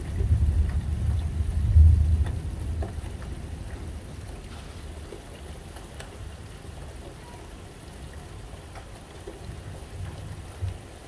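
Low rumble of thunder for the first few seconds, loudest about two seconds in, then fading away. Light rain goes on underneath, with scattered drops ticking.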